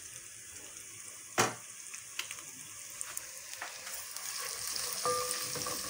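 A single sharp knock about a second and a half in, then chopped onions frying in oil in an aluminium pot, the sizzle growing louder from about halfway as a wooden spoon stirs them. The onions are being cooked toward golden brown.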